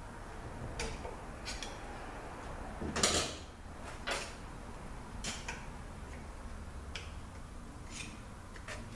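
Hand tools clicking and scraping on metal, a screwdriver or pick prying at a large snap ring inside a ZF6HP26 transmission's aluminium case. Scattered light clicks come every second or so, with a longer scrape about three seconds in.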